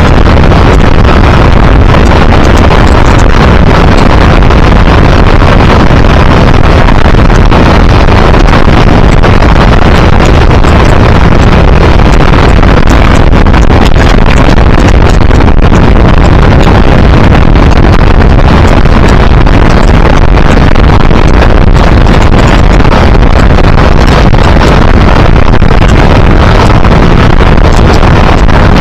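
Motorboat running at speed, its engine noise mixed with steady wind buffeting the microphone and the churning wake; loud and unbroken throughout.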